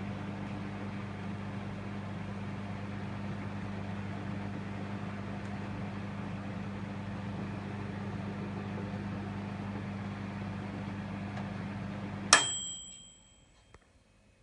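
Severin MW 7875 microwave oven running with a steady hum. About twelve seconds in it stops at the end of its cycle with a single bell ding that rings for about a second.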